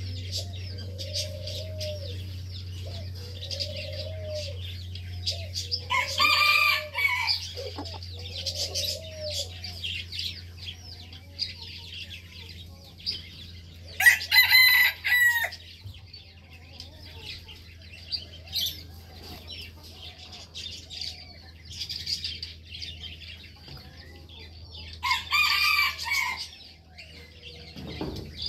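A rooster crowing three times, each crow a second or so long and about eight to eleven seconds apart, over steady high chirping of small birds. A lower call repeats about every second and a half for the first several seconds, and a low steady hum runs underneath.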